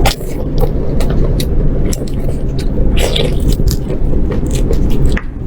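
Close-miked eating of grilled beef ribs: irregular crackly bites and chewing of meat, over a steady low rumble.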